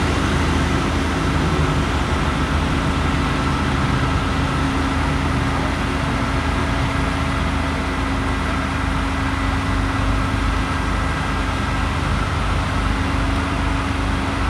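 Heavy diesel engine of a crane running steadily: a constant low drone with a steady hum over it.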